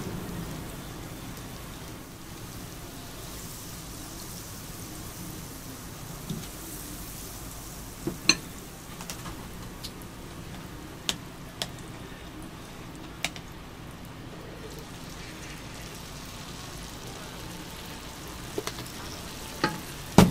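Steady sizzling of bread slices and an egg-and-cabbage mixture frying in butter on a flat griddle, with a few sharp clicks of metal utensils.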